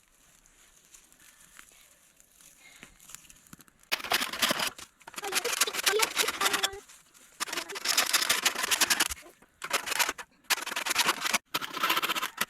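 Campfire crackling and popping loudly in several short stretches, each breaking off abruptly, after about four seconds of faint near-quiet.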